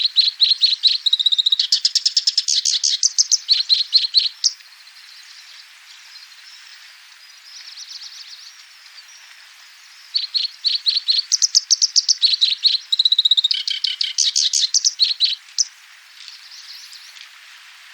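Kerak basi alis hitam, a reed warbler, singing. It gives two bouts of fast, harsh, chattering notes, with about six seconds of quiet between them.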